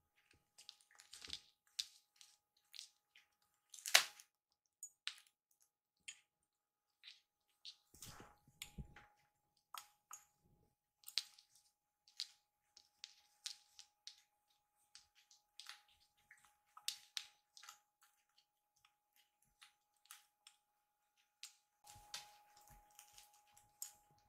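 Faint, scattered small clicks and soft wet ticks of a kitten licking and nibbling its paws and scuffling on a vinyl floor mat, with one sharper click about four seconds in. A faint steady high hum runs underneath.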